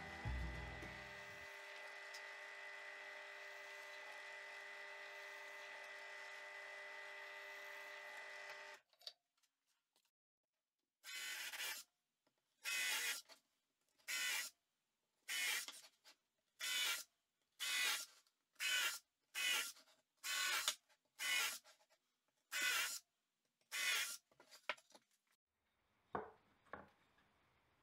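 A steady hum from the drill press motor for about the first nine seconds. Then a cordless drill bores a row of holes through plywood in about a dozen short separate bursts, each under a second. A few faint knocks of wood being handled come near the end.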